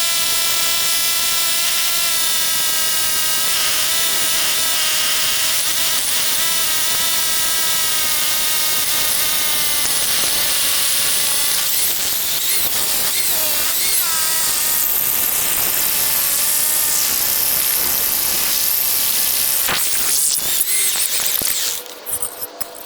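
Hammer drill boring a 1/2-inch anchor bolt hole into a concrete slab: a steady high motor whine that wavers in pitch partway through, then stops shortly before the end.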